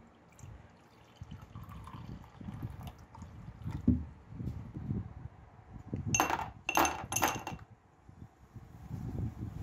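Dilute nitric acid poured from a plastic jug into a glass tumbler, then, past halfway, three sharp clinks in quick succession as small brass fittings are dropped into the glass.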